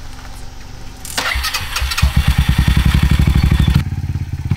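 Small motorcycle engine starting about a second in, then running with a fast, even beat of firing pulses; near the end the sound changes abruptly as the bike pulls away.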